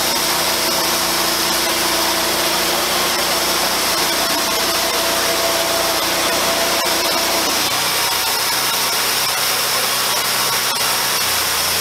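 Wood-Mizer portable band sawmill's engine running steadily between cuts. Its lower tone shifts down about seven and a half seconds in.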